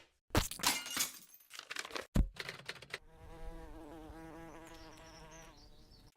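Edited intro sound effects: a few quick swishes and clicks, then a buzzing, wavering tone like an insect's buzz for about three seconds.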